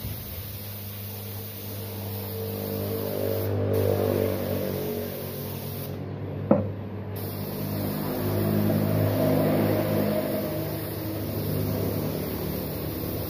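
Air compressor motor running with a steady low drone that swells and eases twice. A single sharp click comes about six and a half seconds in.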